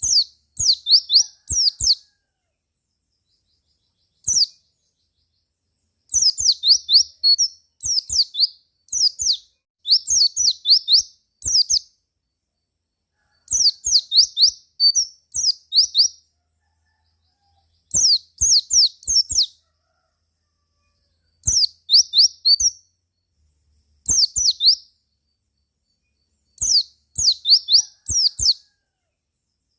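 White-eye (pleci) singing in repeated short bursts of rapid, sharp high chirps that slide downward, with brief silent pauses between the bursts.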